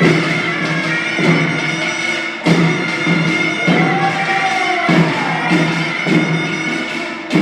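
Korean deulsori (field-song) performance music: folk drums beating a steady rhythm under a shrill, sustained wind-instrument tone.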